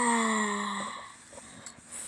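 A person's voice letting out a short, sigh-like 'ahh' that falls slightly in pitch and fades within about a second, followed by a couple of faint clicks.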